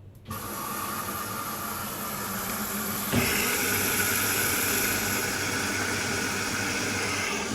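Front-loading washing machine filling with water after starting: a steady rushing hiss of water through the inlet that starts suddenly just after the start and grows louder with a small knock about three seconds in.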